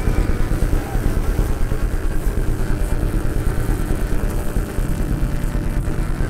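Live electronic sound from a piece played with a wearable exoskeleton controller: a dense, low, engine-like rumble that flutters in rapid pulses, several a second.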